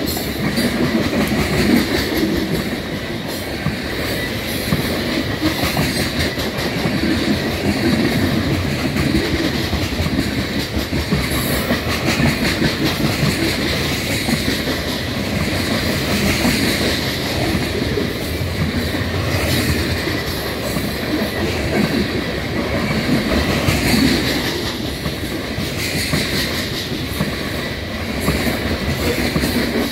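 Loaded coal gondola cars of a freight train rolling steadily past: a continuous rumble of steel wheels on rail with a rhythmic clickety-clack as the wheels pass over the rail.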